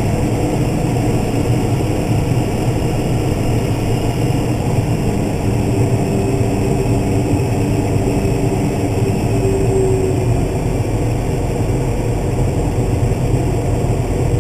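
Case IH Magnum 305 tractor's six-cylinder diesel running under way, a steady drone heard from inside the cab, with a faint whine that comes up for a few seconds midway.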